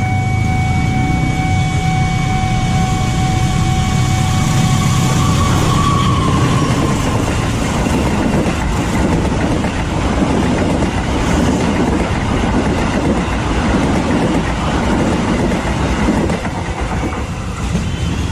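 The KA Serayu passenger train running past a level crossing at close range: a dense rumble with wheels clattering over the rails. A steady tone of one pitch sounds during the first five seconds as the train arrives.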